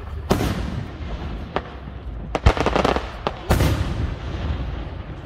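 Aerial fireworks shells bursting: several sharp booms, each trailing off in an echo, with a quick run of sharp pops around the middle and a louder burst about three and a half seconds in.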